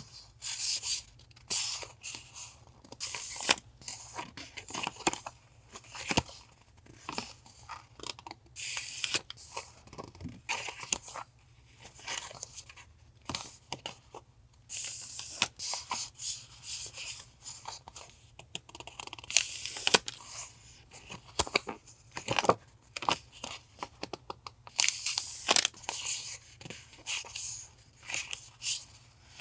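Paper and plastic packaging being handled and opened: irregular rustling, crinkling and tearing in short bursts, some lasting about a second. A faint steady low hum runs underneath.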